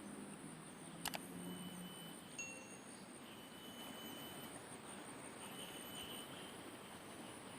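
Faint outdoor ambience with a steady high insect trill and short thin high tones coming and going, plus a sharp double click about a second in.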